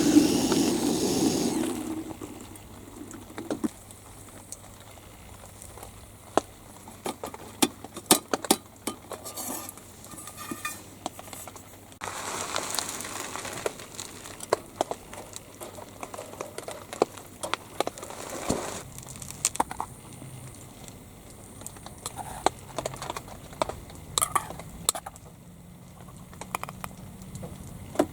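Camp cooking sounds: a steady hiss that stops about two seconds in, then many scattered clinks and clicks of utensils on cookware. A second stretch of hissing runs through the middle.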